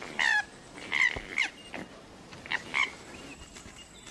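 Koala squealing: five or so short, high cries that fall in pitch, in two bursts about two seconds apart.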